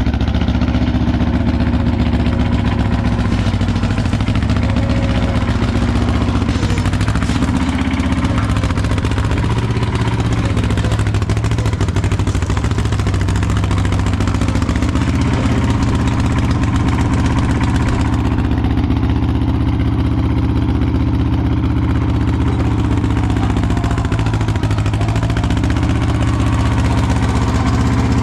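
Bobcat 632 skid steer's engine running steadily at idle.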